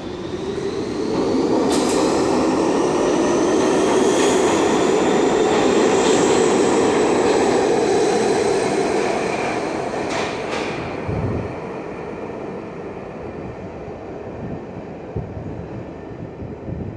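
R62A subway train pulling out of the station and gathering speed: wheels and motors rumbling with a whine that rises in pitch, loudest for several seconds, then fading away about ten seconds in, leaving a low station hum.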